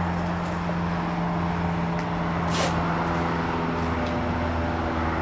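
Steady low mechanical hum with a constant droning pitch, and a short hiss about two and a half seconds in.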